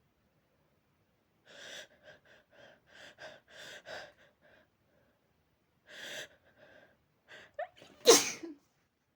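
A person's allergic sneezing: several short, breathy gasping in-breaths, then one loud sneeze about eight seconds in. It is residual sneezing from a dog allergy.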